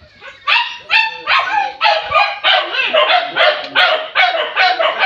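A hunting dog barking rapidly and repeatedly, about two to three loud barks a second, starting about half a second in.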